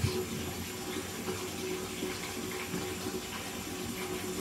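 Bathtub tap running steadily, water pouring into the filling tub.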